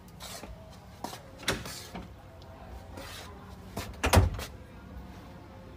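A few short knocks and clicks, with the loudest, deepest knock about four seconds in.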